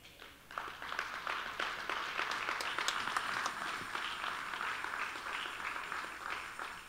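Congregation applauding, many hands clapping together, rising about half a second in and tapering off near the end.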